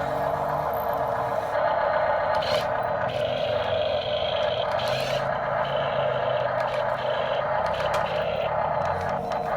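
Excavator running, a steady mechanical drone with a few brief knocks.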